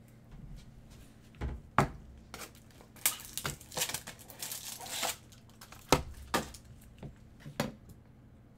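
Gloved hands handling trading cards and crinkly plastic packaging: a stretch of crinkling and rustling in the middle, with several sharp taps and clicks as cards are set down.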